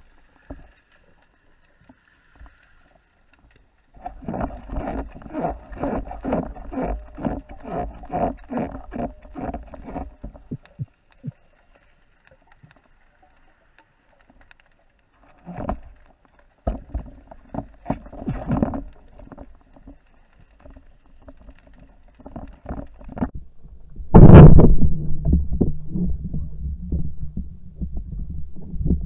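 Underwater, a band-powered wooden speargun fires at a bluefish with one loud, sharp crack about three quarters of the way in, followed by a steady low rumble and churning of water. Earlier there are stretches of rapid clicking and knocking.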